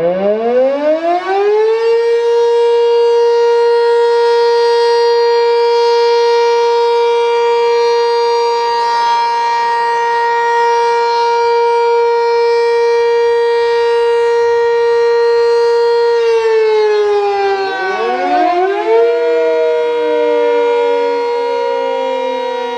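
Sentry 3V8 and 7V8 outdoor warning sirens sounding together, winding up to a loud, steady alert tone that holds for about fourteen seconds. Near the end one siren falls away in a long downward wail while the other dips and winds back up to full pitch.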